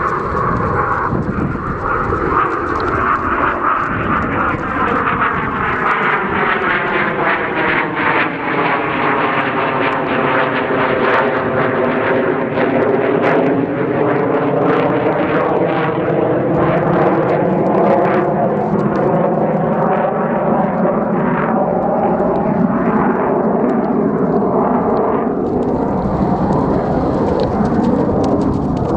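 Steady drone of an aircraft passing overhead, its tone sweeping slowly down and back up, with the soft thuds of a cantering horse's hooves on dirt.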